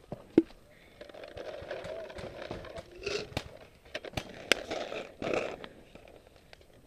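Rustling and crunching as a paintball player moves over forest litter behind a log bunker, with scattered sharp clicks and knocks; the loudest comes about half a second in.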